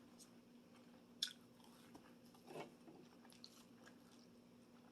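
Faint close-up chewing of meatballs, with a few soft mouth clicks (the sharpest about a second in); otherwise near silence.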